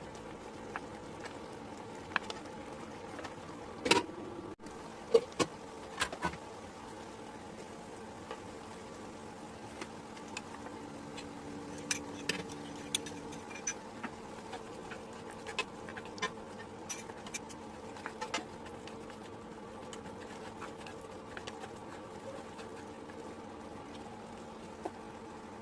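Steady buzzing hum with scattered sharp clicks and taps, a cluster of louder ones about four to six seconds in.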